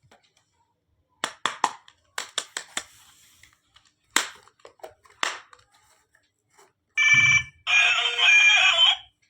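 Sharp clicks and clacks of small toy kitchen pieces being handled and set down, then from about seven seconds in a loud electronic ringing melody like a ringtone, which breaks off briefly and starts again near the end.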